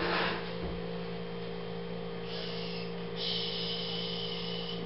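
A steady low electrical hum, with a short clatter at the start as the blender jar and lid are handled. A thin high hiss comes in about halfway through.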